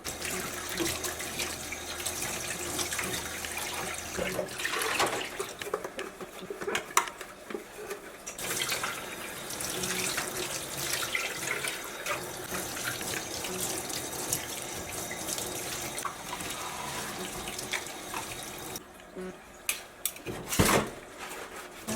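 Water running from a tap into a sink, with scattered clinks and knocks. The flow stops near the end, leaving a few louder knocks.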